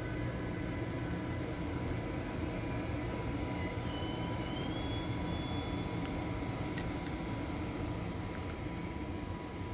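DB class 101 electric locomotive standing with its equipment running: a steady low rumble with a thin steady whine. A faint rising whistle comes about four seconds in, and two sharp clicks about seven seconds in.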